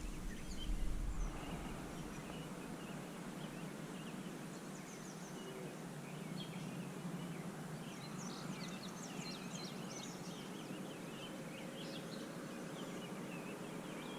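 Small birds chirping against a steady background hiss, with the chirps growing busier after about six seconds.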